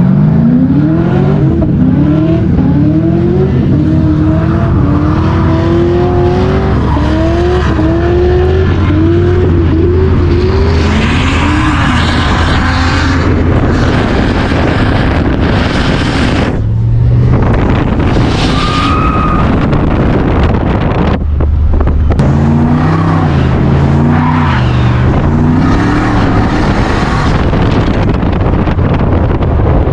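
A car engine revving hard over and over, its pitch climbing and falling back about once a second, with bursts of tyre squeal.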